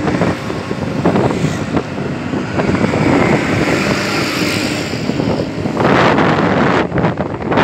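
Wind buffeting the microphone on a ride through open road traffic, over vehicle engine and road noise. The buffeting is heaviest about six seconds in.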